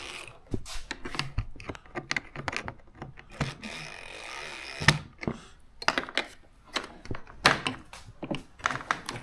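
Hand ratchet clicking in short, irregular runs, with small knocks of the tool against the metal fog light bracket, as its bolts are turned.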